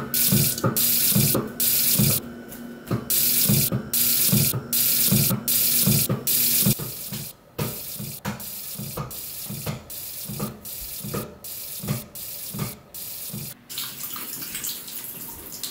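Kitchen sink tap running, the gush of water cutting in and out in a quick regular stutter about twice a second. It is louder for the first half and softer after that.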